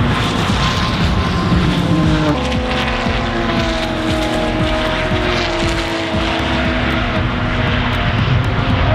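Car engine running hard at track speed. Its pitch drops sharply a little over two seconds in, like a gear change, then climbs steadily again.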